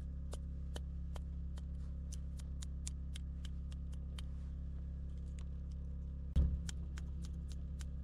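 Light, quick finger taps on the Kia Optima Hybrid's 125 A high-voltage battery fuse, about three to four a second, over a steady low hum, with one heavier knock about six seconds in. The fuse is being tapped while its resistance is measured, to find an intermittent internal connection.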